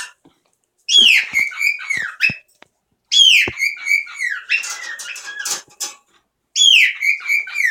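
A pet bird whistling loudly, repeating the same whistled phrase three times: each opens with a falling swoop and runs on into warbled notes, with short pauses between.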